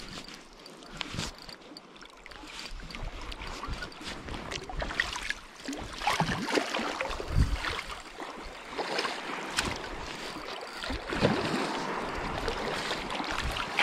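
Water splashing and sloshing in the shallows as a hooked sea trout thrashes at the surface near the landing net, with the splashing louder from about five seconds in.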